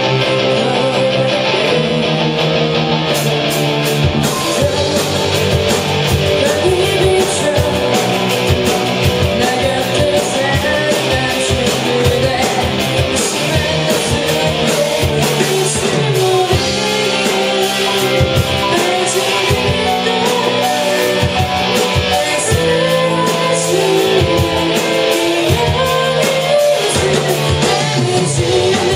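Live rock band playing a song, led by guitar, with a steady beat of sharp strokes coming in about three seconds in.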